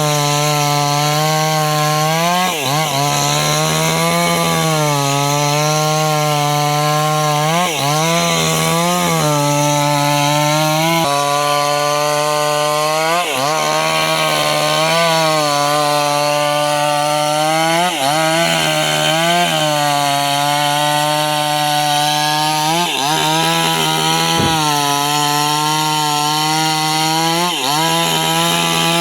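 Small chainsaw running steadily under load, cutting lengthwise through a young teak log to square it into a beam. The engine note sags and recovers every few seconds as the chain bites.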